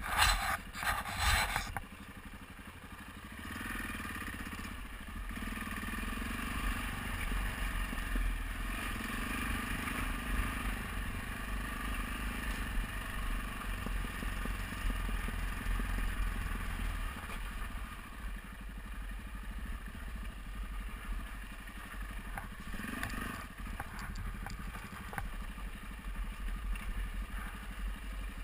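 Adventure motorcycle engine running at low speed on a steep rocky gravel track, with tyres scraping and crunching over loose stones. A loud rustling clatter fills the first two seconds, and there is a briefer clatter a little after the two-thirds mark.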